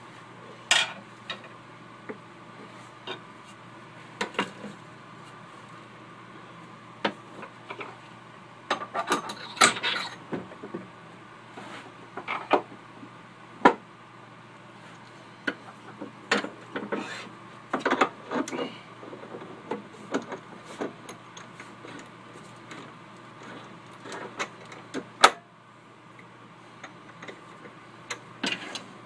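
Scattered metal clicks, clinks and knocks of a wood lathe being re-rigged by hand: the drive spur and tailstock centre are taken off, a four-jaw chuck is fitted and the wooden blank is clamped in its jaws. A steady low hum runs underneath.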